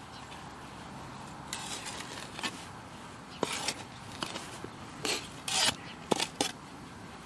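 Metal spade digging in a hole: about half a dozen short, sharp scrapes of the blade through soil and against the buried ceramic pot, the loudest a little past halfway.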